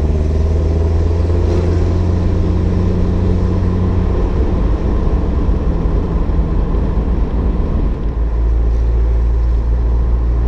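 1956 Mercedes-Benz 190 SL's four-cylinder engine running on the road with a throaty exhaust note, heard from the open roadster. The steady note turns rougher about halfway through and settles back into a steady low drone near the end.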